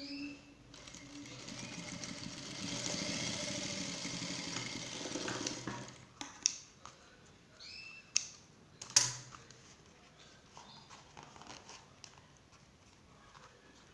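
Industrial sewing machine running steadily for about five seconds as it stitches fabric, then stopping. A few sharp snips follow as thread ends are cut with scissors.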